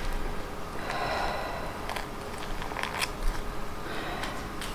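Parchment paper rustling and crinkling as it is peeled back from around a cheesecake, with a few light clicks of handling.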